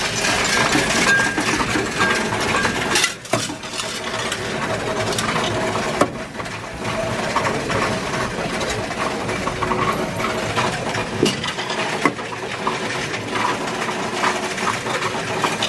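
Coinstar coin-counting kiosk working through a large load of loose change: a continuous dense rattling and clinking of coins as they are fed in and counted, with a short break about three seconds in.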